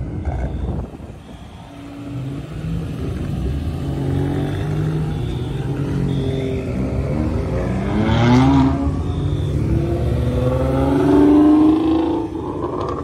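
Modified cars' engines accelerating one after another as they drive past, with a rising rev about eight seconds in and the loudest pass near the end.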